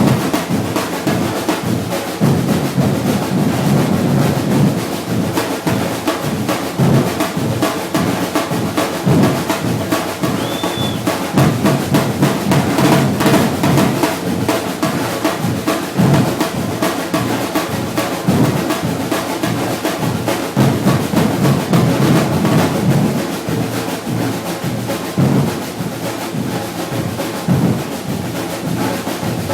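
Brazilian batucada percussion group playing a steady groove together, with deep bass drums under rapid snare strokes.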